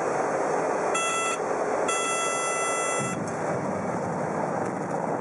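Small single-engine aircraft's engine and propeller noise heard inside the cockpit as the plane rolls along an airstrip. A cockpit warning tone sounds twice: a short beep about a second in, then a longer one of about a second just after.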